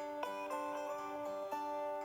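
A Samsung Galaxy J7 (2015) ringtone playing: a melody of short notes, a new one every quarter to half second, over held chords.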